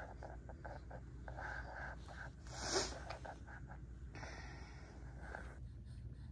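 A baby's breathing noises and small sounds, with one brief louder noise near the middle, over a steady low room hum.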